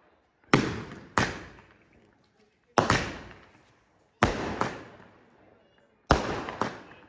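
Firecrackers going off: about seven sharp bangs, mostly in pairs about half a second apart, each followed by an echoing tail that fades over about a second.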